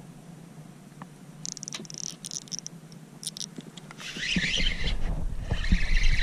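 Short high-pitched buzzing runs and clicks of a spinning reel while a hooked fish pulls against the bent rod. About four seconds in, a louder rushing, splashy noise with low rumble takes over.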